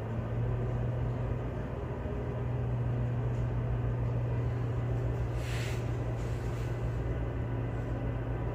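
Tugboat's diesel engines running, a steady low drone heard inside the wheelhouse that strengthens right at the start, with a short hiss about five and a half seconds in.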